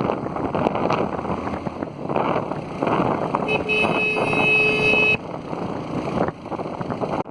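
Wind rushing over the phone's microphone on a moving vehicle, with a vehicle horn sounding one steady note for about a second and a half in the middle, cut off sharply.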